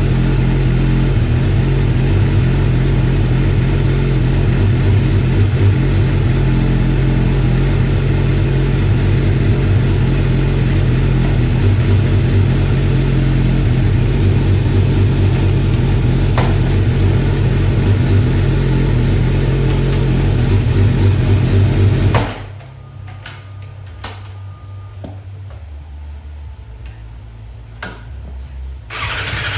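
The freshly rebuilt inline-four engine of a 2006 Kawasaki Ninja ZX 600 runs at a steady idle, then is shut off about 22 seconds in. A quieter stretch with a few faint clicks follows, and near the end the engine starts up again.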